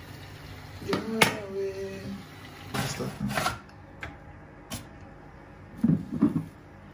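Hands working soft pastry dough on a floured kitchen worktop: a few knocks and rubbing scrapes, with a short hum of a voice about a second in and brief vocal sounds near the end.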